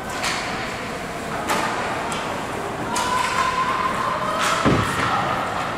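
Ice hockey play at the rink boards: several sharp knocks of sticks and puck, then one heavier thud near the end, like a puck or player hitting the boards.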